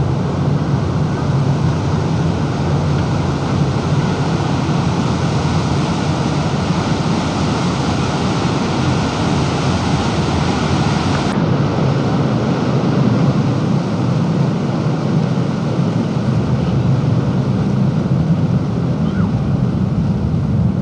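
Steady rushing noise of wind on the microphone and water along the hull of a moving passenger boat, with a low drone from the boat underneath. The high hiss drops suddenly about eleven seconds in.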